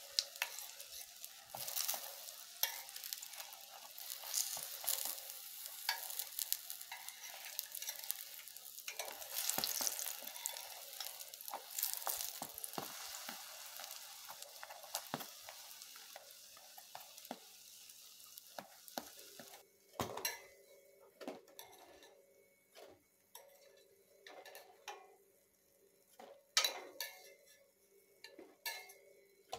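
Drop scone batter sizzling and crackling in hot oil in a frying pan. About two-thirds of the way through the sizzle stops, followed by scattered clinks of kitchenware.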